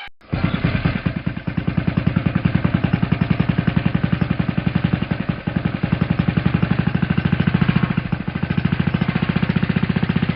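Fishing boat engine running: a rapid, even pulse of exhaust beats, most of its weight low, that starts abruptly and cuts off shortly before the end.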